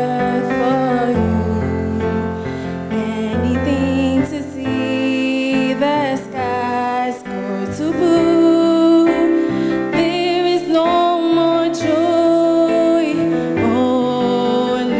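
Slow, tender live music: piano with a voice singing a wavering, held melody over it.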